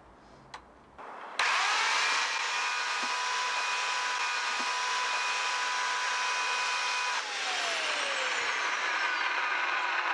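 Bosch corded electric chainsaw switched on about a second and a half in, its motor spinning up to a steady high whine with the chain running. About seven seconds in its pitch sinks as the chain is pushed into something, and it keeps running.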